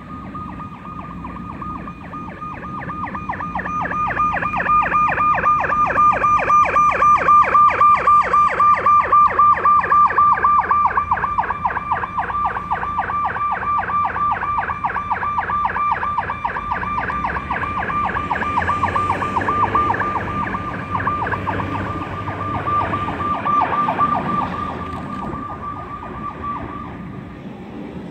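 Fire truck's electronic siren sounding a high, fast-warbling tone over the rumble of its engine as it arrives. The siren is loudest a few seconds in, then fades somewhat and cuts off near the end.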